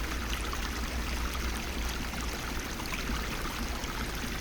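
River water flowing steadily, an even rushing noise with no distinct events.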